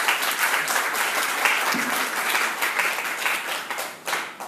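A small audience applauding after a talk, the clapping dying away near the end.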